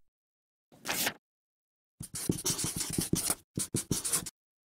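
Marker pen writing on paper: a run of quick scratchy strokes starting about two seconds in, a brief pause, then a few more strokes. A short soft noise comes about a second in.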